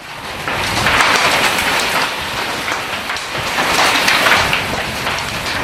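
Hail and heavy rain pelting down in a storm, a dense rush of many small hits that grows louder about half a second in.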